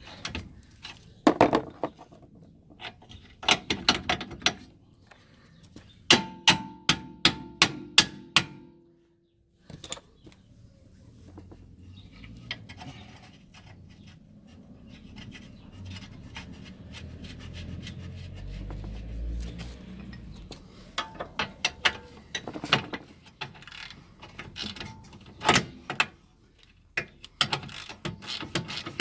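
Hand tools clicking and knocking on metal during rear suspension work, including a run of about eight evenly spaced clicks with a faint ring. Partway through the sound drops out abruptly, and a low rumble builds before the clicking resumes.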